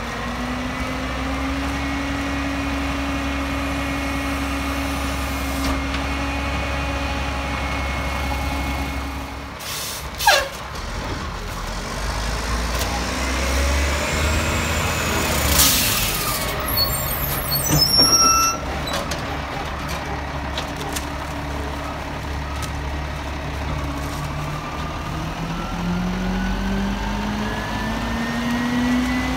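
Mack rear-loader garbage truck with an EZ Pack Goliath body, diesel engine running steadily. Around the middle a sharp click and air-brake hisses come as the truck moves up to the next stop, and near the end the engine pitch rises as it revs up.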